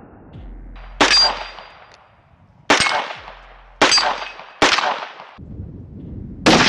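Five shots from a .22 LR AR-platform rifle firing high-velocity hollow-point rounds, at an uneven pace, each sharp crack followed by a short ringing tail.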